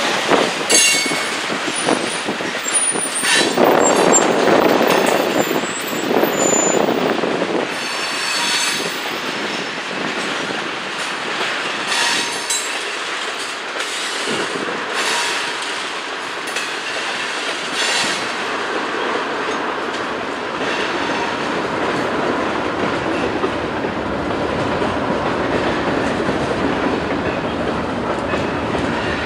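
Freight cars (covered hoppers and tank cars) rolling past at speed: steel wheels clattering over the rail joints with repeated knocks and a steady rumble. Thin, high wheel squeals come in the first several seconds.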